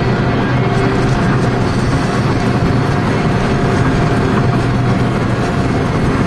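Steady vehicle noise of driving at highway speed, engine and road rumble without change in pitch.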